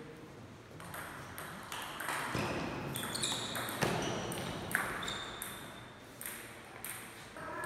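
Table tennis rally: the celluloid-type plastic ball knocking off the rubber bats and the table in alternation, a hit about every half second to second.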